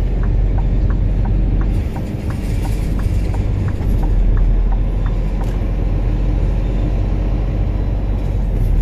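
Scania R440 truck's diesel engine running steadily in the cab as the truck turns. A regular ticking of about two to three clicks a second runs over it: the turn-signal indicator.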